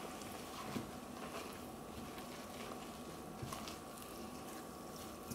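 Fingers mixing and working a firm flour dough in a bowl: faint, soft squishing with a few light clicks.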